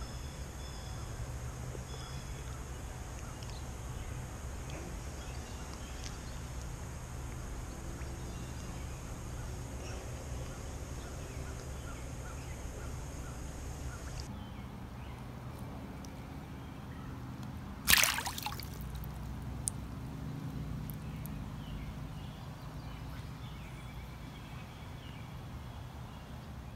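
Creek water sloshing and trickling close to a camera at the water's surface as a brown trout is held in the current and let go. One brief, loud, sudden sound about 18 seconds in.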